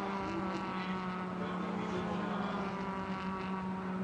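Suzuki Swift race car engine running under power, holding a steady, even pitch.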